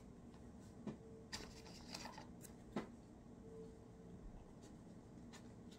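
Plastic credit cards being handled and slid into the slots of a card holder: a few faint clicks and scrapes in the first three seconds, the sharpest just before the three-second mark.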